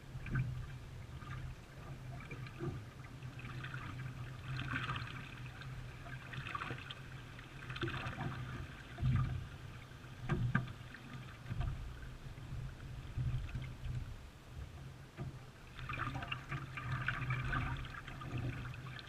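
Canoe paddling: irregular splashes of paddle strokes in the water over a steady low hum, with a couple of heavier low thumps about halfway through.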